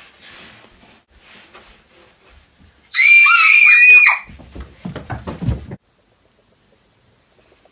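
Several girls scream together for about a second, high and wavering, staged as a fright in a horror film. Thumps and scuffling follow as they scramble back, then the sound cuts off suddenly.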